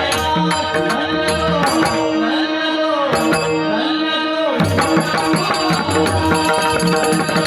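Marathi devotional bhajan: a male voice sings a melismatic line over steady held keyboard-like drone notes, with a hand-drum rhythm. The drums drop out about two seconds in and come back strongly about four and a half seconds in.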